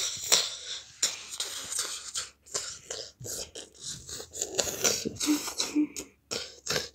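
A person making breathy, hissing mouth sound effects for a toy fight, in short irregular bursts, with two brief hummed notes late on.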